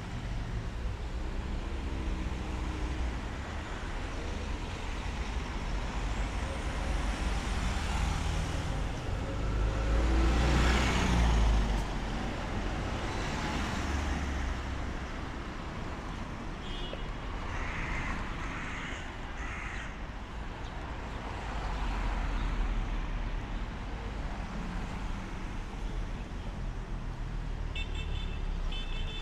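City street traffic: cars and buses running past steadily, with one vehicle passing close and loud about ten seconds in.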